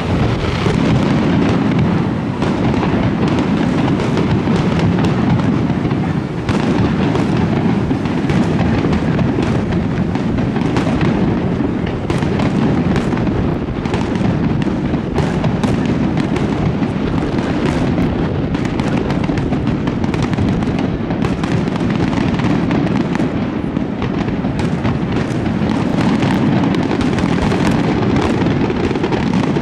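Aerial fireworks display: loud shell bursts and bangs in rapid, unbroken succession, layered over a continuous rumble of echoing detonations.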